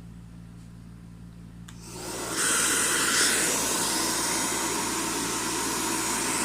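NV-899 Nova hair dryer switched on at speed 2 with a nozzle head fitted: after a small click, about two seconds in its motor and airflow rise quickly to a loud, steady blowing.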